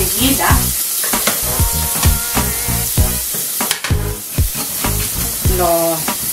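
Onion sizzling as it fries in olive oil in a pot, with garlic being rasped on a hand grater, under background music.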